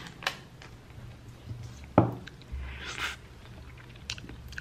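Handling of an ice cream cup and its peeled film lid: a few light clicks and a short rustle, with one sharp knock about two seconds in as the cup is set down on a wooden table.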